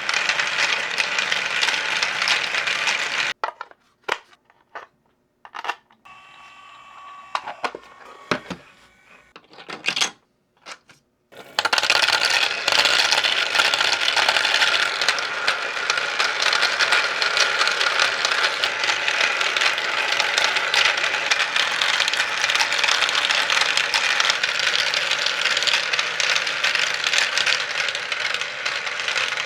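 Marbles clattering and rolling through a 3D-printed plastic marble machine, a dense continuous rattle of many small clicks. About three seconds in it thins to a few separate clicks and a faint hum, then the dense clatter returns a few seconds before the halfway point.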